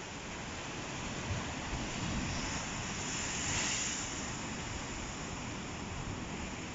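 Ocean surf on a beach: a steady wash of waves, with one wave breaking and hissing up to a peak about three to four seconds in before easing off.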